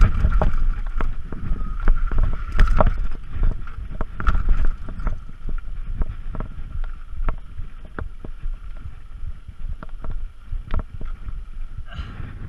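Mountain bike clattering over rock, with sharp knocks and rattles from the bike as the tyres hit rocks and ledges, over a low wind rumble on the mounted camera's microphone. The knocking is heaviest in the first half and thins out later.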